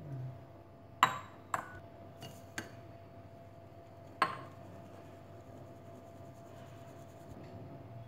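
A handful of sharp clinks from steel tumblers and a wire-mesh sieve knocking against a glass mixing bowl and each other while flour and sugar are poured in for sifting. The loudest clinks come about a second in and again just after four seconds, each with a brief ring.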